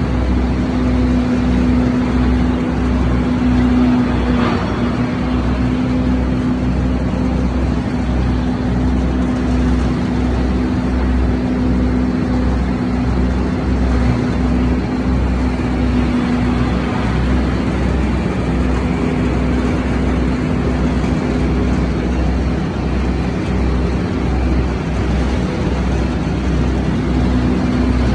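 Haybuster tub grinder chopping straw, running loudly and steadily with a constant hum and an uneven low throb underneath.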